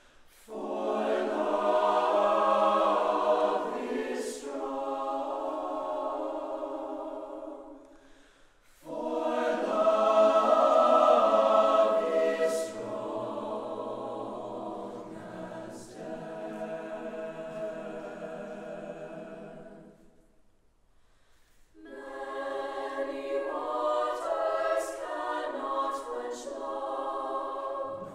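Mixed choir of men's and women's voices singing in three phrases, with brief pauses between them about eight and twenty-one seconds in.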